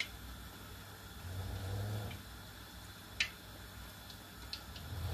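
Battered fish frying in hot oil in a pan: a faint steady sizzle with a few sharp pops. A low rumble comes in about a second and a half in.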